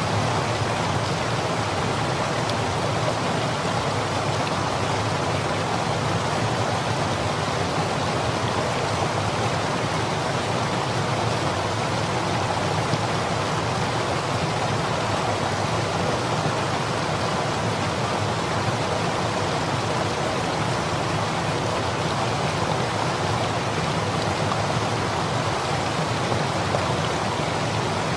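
Mountain river rushing steadily over rocks and rapids.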